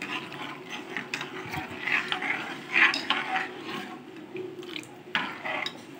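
Steel ladle stirring milk and sago pearls in a steel pot, scraping and clinking against the pot's sides and bottom, with a few small knocks.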